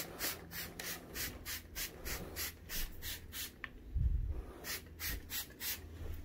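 Hand spray bottle misting carpet deodorizer in quick squirts, about three to four short hisses a second, with a brief pause and a low thump a little past the middle.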